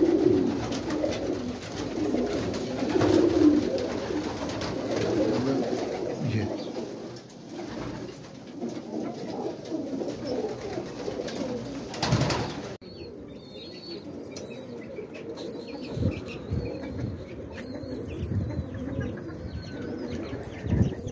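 Domestic pigeons cooing, repeated low rounded coos through the first half. About halfway through, the sound changes abruptly to a quieter background with faint high chirps and occasional soft thuds.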